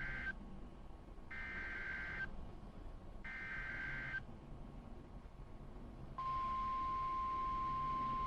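NOAA Weather Radio Emergency Alert System header: SAME data bursts about a second long with a second between them, the last of three, then about six seconds in the steady 1050 Hz warning alarm tone begins and holds. Together they announce a new warning.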